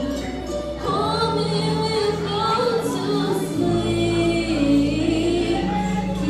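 Song with female voices singing over sustained held chords; the bass note shifts about a second in and again partway through.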